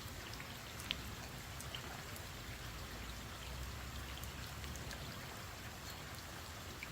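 Steady light rain falling on pavement and a puddle, with faint scattered drop ticks.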